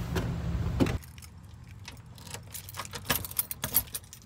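A key ring jingling and keys clicking in the lock of a front door with a deadbolt as it is unlocked, in a quick irregular run of metallic clinks. Before that, a low rumble stops abruptly about a second in.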